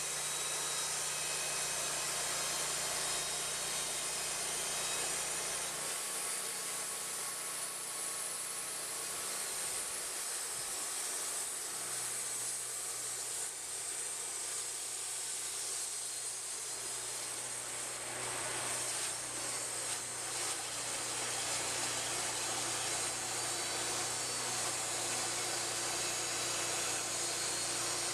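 Wood-Mizer LT40 portable band sawmill running steadily while sawing pine logs. Its low engine tone drops away about six seconds in and a different steady tone comes in around twelve seconds.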